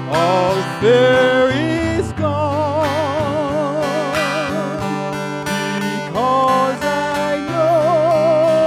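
Gospel hymn sung by a single voice, sliding up into long notes held with a wide vibrato, over acoustic guitar accompaniment.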